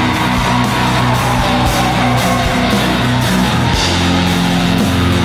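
Heavy metal song with distorted electric guitars and bass over rapid, driving drums, with no vocals.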